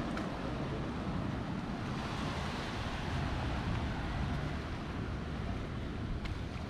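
Wind buffeting the microphone over a steady rush of sea surf.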